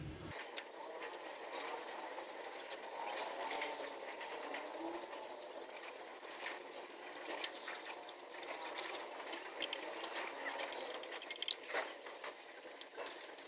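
Faint metal clicks and scrapes of a screwdriver working at an old Rajdoot motorcycle's clutch release mechanism, over a steady low mechanical whirr.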